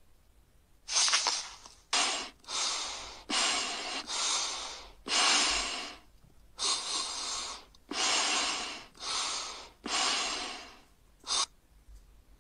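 Loud heavy breathing, about ten hissing breaths in and out in quick succession, starting about a second in and ending with a short gasp.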